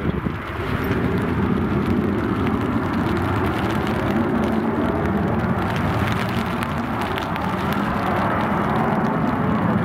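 Airbus A320's jet engines on the landing roll-out just after touchdown: a steady rushing noise, with strong wind buffeting the microphone.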